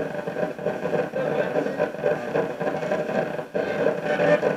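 Spirit box (ghost box radio) sweeping through stations: a continuous jumble of radio static and garbled broadcast fragments, broken by brief dropouts as it jumps from channel to channel. Near the end a fragment is taken by the investigators for the word "panic".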